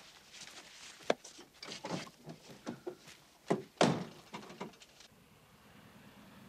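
A man's ragged gasps and short groans of pain, at uneven intervals, the loudest a pair past the middle. They stop about five seconds in.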